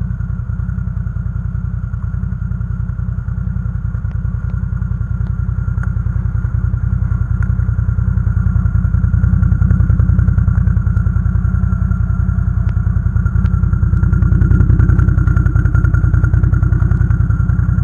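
Can-Am Outlander ATV engine running while riding off-road, with a fast, even low pulsing. It grows louder about halfway through and again near the end, with scattered light clicks and clatter.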